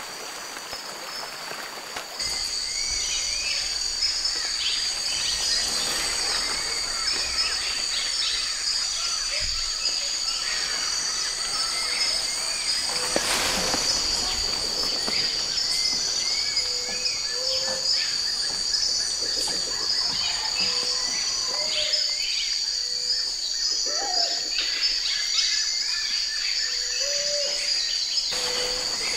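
Tropical rainforest ambience: a chorus of insects droning in steady high-pitched bands, with scattered bird calls and chirps over it. The insect chorus grows louder about two seconds in.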